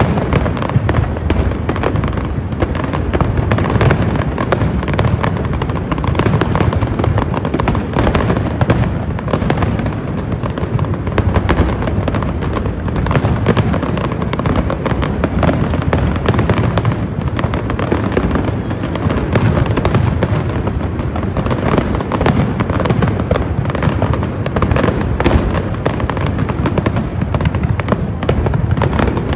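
Large aerial fireworks display: a dense, unbroken run of shell bursts and bangs, one after another with no pause.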